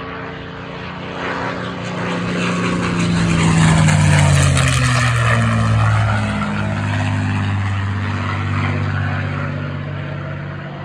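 Piston-engined warbird flying past: the propeller engine note grows louder, peaks about four seconds in, and slides down in pitch as the aircraft passes, then eases off before building again near the end.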